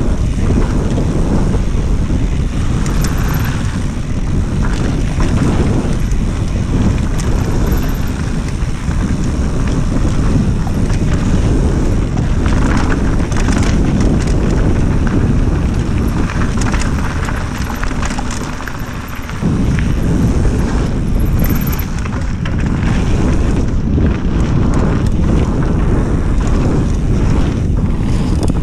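Wind buffeting the microphone of a mountain biker's on-body camera while riding fast down a dirt singletrack, with the tyres rumbling over the trail and the bike clattering and knocking over bumps. The wind rumble eases for a moment about two-thirds of the way through, then picks up again.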